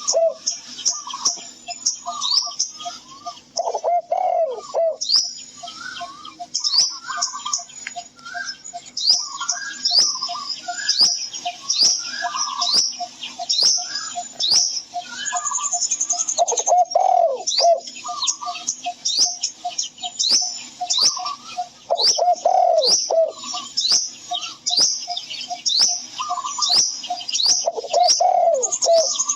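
Birdsong: many birds chirping in dense, quick high-pitched notes over a steady fast run of repeated short notes. A lower, falling call sounds four times.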